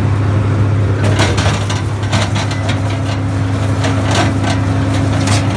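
New Holland 353 grinder mixer running under power: a steady low drone with irregular knocks and clatter from the machinery throughout.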